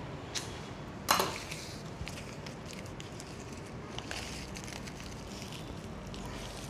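Rustling and handling noises from flower stems, foliage and tie being worked into a bridal bouquet, with one sharp crackling rustle about a second in, over low steady background noise.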